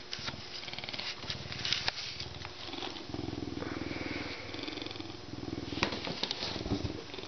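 A lynx purring deep and rumbling while its fur is rubbed, in phrases about a second long with short breaks, louder from about three seconds in. A few sharp clicks and some rustling come through alongside the purr.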